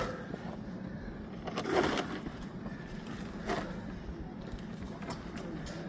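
A few irregular scuffs and knocks of climbing movement on rock, such as shoes and hands on the stone, over a steady low background. The loudest comes about two seconds in.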